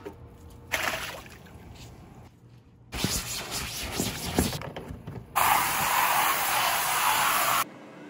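A stiff brush scrubbing the vinyl wall of an inflatable hot tub, scratchy strokes, then about two seconds of steady hissing water spray that cuts off abruptly.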